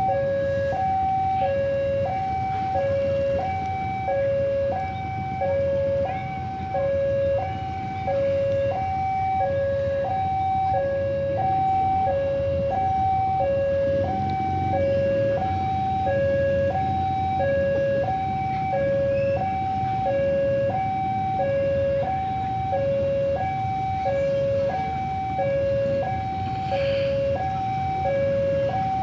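Railway level-crossing warning alarm sounding a steady two-tone ding-dong, a higher and a lower tone alternating about every half second. It is the crossing's signal that the barriers are closed for an approaching train.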